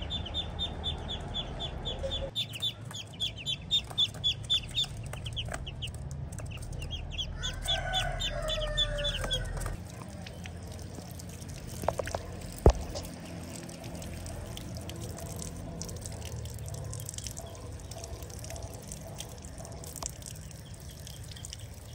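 Poultry calling: a rapid series of high chirps for the first few seconds and again a little later, with a lower call alongside the second series. Then a tap runs onto concrete, with one sharp knock about halfway through.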